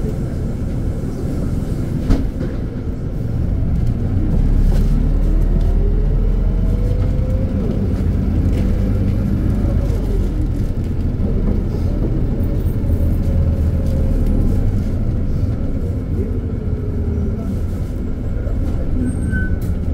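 Cabin sound of a Volgabus-4298.G4 city bus with a Weichai WP5NG200E51 natural-gas engine pulling away from a stop: a steady low engine rumble, a sharp knock about two seconds in, then the engine louder with drivetrain whines rising in pitch as the bus gathers speed.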